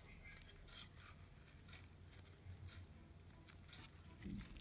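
Faint rustling and scattered small clicks of wrapping film being peeled off a small loudspeaker's frame and the speaker being turned in the fingers, with a soft bump near the end.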